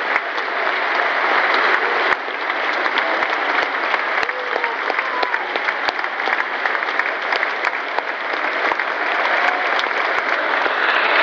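Large football crowd applauding in a stadium: dense, steady clapping with scattered voices mixed in.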